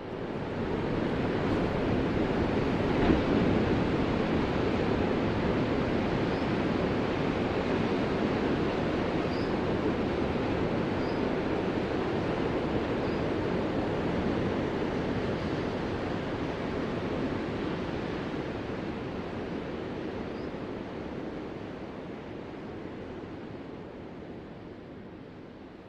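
Ocean surf washing in a steady, dense rush without distinct separate breaks, fading gradually near the end.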